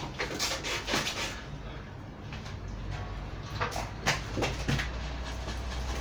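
Scattered knocks and scrapes of a bonsai being shifted and turned in its pot, over a steady low hum.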